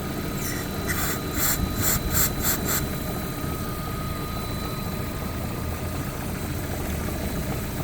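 Lada Granta 16-valve engine idling steadily with a faint steady whine, the alternator belt not squealing after a temporary fix for damp-weather belt squeal. A quick series of about six sharp clicks comes about a second in.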